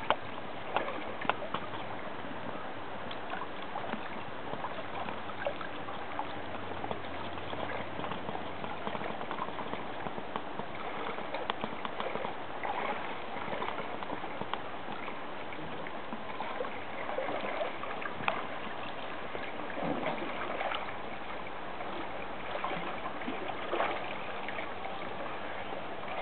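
Gentle water lapping and trickling around an inflatable pool lounger as it drifts, with small splashes and a few louder sloshes late on.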